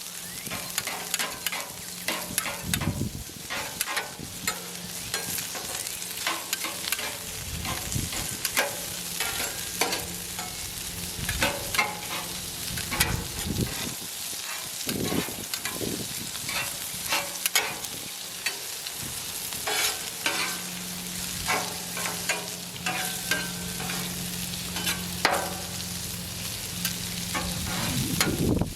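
Hot dogs sizzling on a flat-top griddle while they are chopped up with metal tools, giving many irregular sharp clacks and scrapes of metal on the griddle surface over a steady frying hiss.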